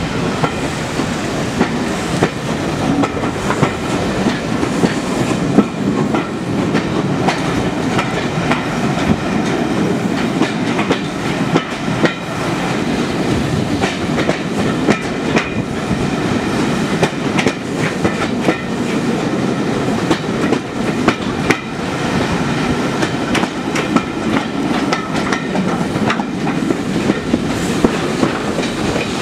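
A train running along the line, heard from on board: a steady rumble with frequent clicks of the wheels over rail joints.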